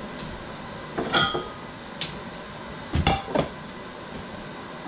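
Kitchen dishes knocking and clinking twice: a clink with a brief ring about a second in, then a heavier knock and clatter about three seconds in, over a steady background noise.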